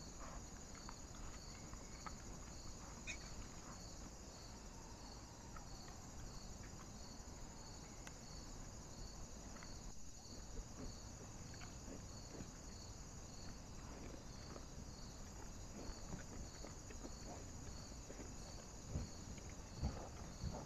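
Night insects chirping in a steady, regular pulse, about two chirps a second, with faint rustling and scuffling from wild boar and piglets rooting in the ground. Heavier thumps of hooves and digging come in near the end.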